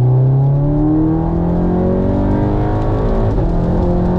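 Audi 8Y's turbocharged 2.0 TSI four-cylinder pulling hard under full throttle, breathing through a newly fitted Blaze Atom intake, heard from inside the cabin. The engine note rises steadily and levels off near the end.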